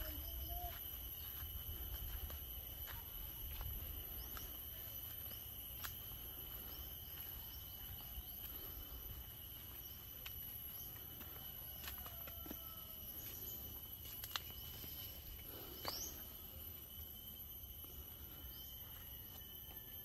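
Faint garden ambience: a steady high-pitched insect drone, with a few faint short bird chirps and light clicks scattered through.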